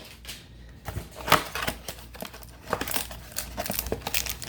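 Cardboard trading-card hanger box being torn open and the wrapped card pack inside rustling as it is pulled out: a run of crinkles, scrapes and small taps, with one sharper tear or snap about a second and a half in.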